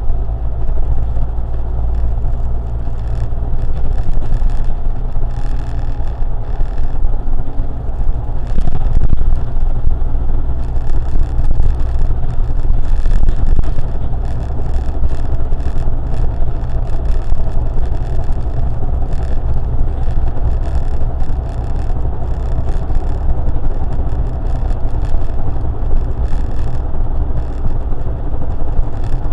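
Steady low rumble of a car being driven on a city road: engine and tyre noise run continuously, without let-up.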